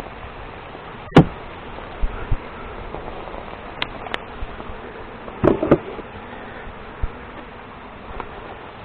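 Honey bees buzzing around an open hive, a steady hum, broken by a few sharp knocks, the loudest about a second in and a quick cluster around five and a half seconds in.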